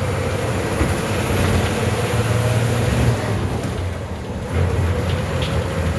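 MWM TCA 6.10 six-cylinder engine of a Volksbus 17.210 OD city bus, converted to run on natural gas, running steadily under way. The engine sound eases off for a moment and picks up again about four and a half seconds in.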